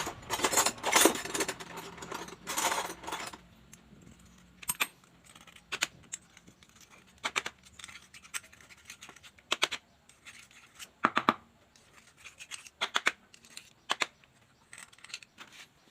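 Small metal parts and tools of a brush cutter gear head being handled: a spell of scraping and rattling for about three seconds, then scattered sharp clicks and taps of metal on metal.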